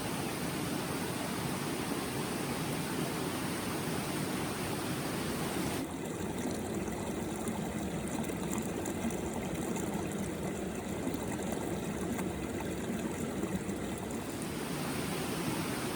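Steady rush of flowing stream water. For several seconds in the middle its sound changes a little, with less hiss in the highs.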